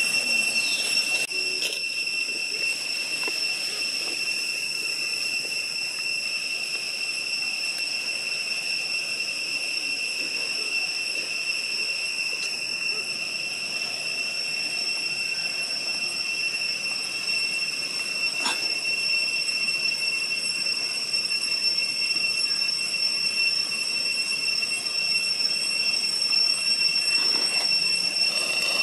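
Cicadas droning in the trees: one steady, high-pitched buzz that holds without a break, with a faint click or two.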